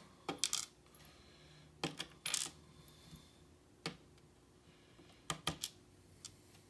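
Small metal lock pins being taken out of a pin-tumbler lock core: several light, sharp metallic clicks and tinks at irregular intervals as the pins are handled and dropped onto the work surface.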